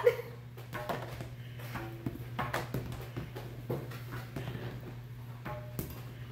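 Scattered light clicks and taps from the plastic pieces of a Pigs on Trampoline tabletop game as it is played.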